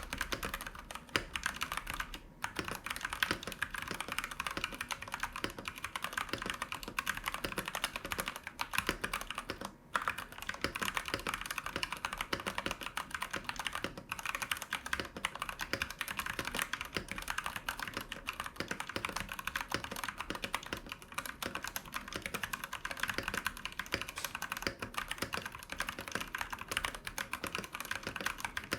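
Rexus Daxa M64 Classic mechanical keyboard being typed on continuously: a rapid, uneven stream of key clacks, with short pauses about two seconds and ten seconds in. It is a tray-mount board with a steel plate and two foam layers fitted to cut down hollow sound.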